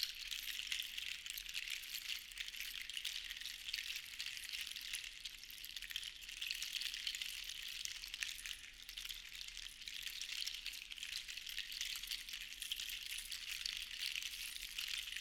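Many small seashells rattling and rustling together in a continuous, dense patter, swelling and fading in slow waves every few seconds.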